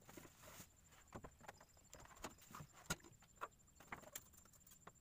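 Near silence broken by a few light, irregular clicks and knocks of fishing tackle being handled in a wooden boat.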